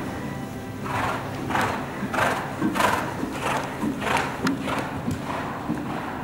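Horse cantering on arena sand, breathing out hard in time with its strides, about three breaths every two seconds, with soft hoof thuds. The sounds are loudest about halfway through and fade as the horse moves away.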